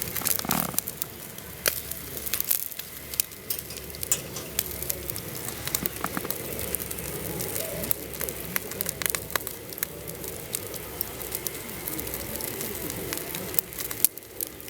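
Wood fire crackling, with irregular sharp pops and snaps over a steady hiss.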